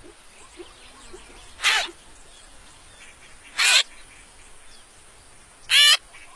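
Cartoon bird chicks squawking: three short, loud, warbling squawks about two seconds apart, over faint outdoor ambience.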